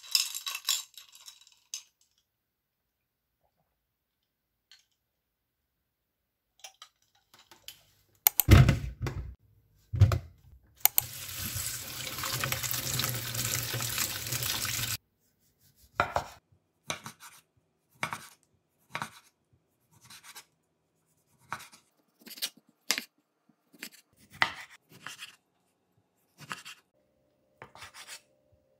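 Two thumps, then a kitchen tap running for about four seconds over a tomato being rinsed in a stainless-steel sink. After that, a kitchen knife cutting through food on a wooden cutting board, one short stroke roughly every second, ending on slices of mozzarella.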